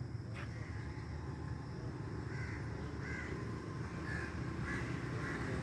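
Crows cawing: a series of short caws, one about every half second, starting about two seconds in, over a low steady rumble.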